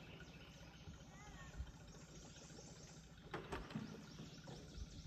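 Faint outboard motor on a small jon boat idling across the water, with a few faint knocks about three and a half seconds in.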